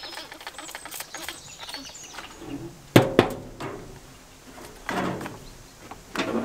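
A few trigger-spray spritzes onto the meat, then the offset smoker's heavy steel lid shutting with a sharp double clang about three seconds in.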